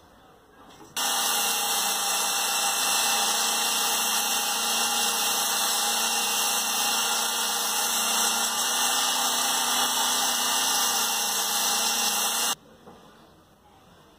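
Electric drill running at a steady speed, spinning a wooden lure blank mounted on a threaded rod, with a strong high hiss over the motor hum. It starts suddenly about a second in and cuts off suddenly near the end.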